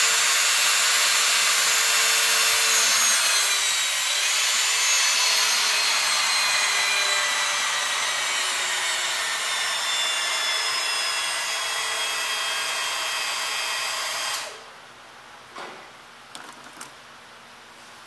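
Hydraulic pump running steadily, pressurising a hydraulic cylinder under load test in a press: a loud hiss with a faint whine that slowly falls in pitch, cutting off about fourteen seconds in. A few light clicks follow.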